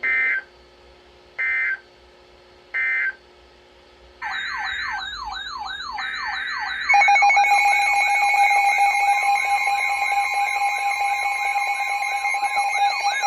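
Emergency Alert System end-of-message signal: three short bursts of two-pitch digital data tones about a second and a half apart. About four seconds in, warbling alarm tones start, sweeping up and down about twice a second. They grow louder near seven seconds as more warbling and steady alarm tones join.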